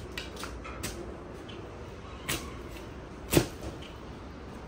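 A long-handled spade being driven into garden soil: a handful of short chops and scrapes, the loudest a little over three seconds in.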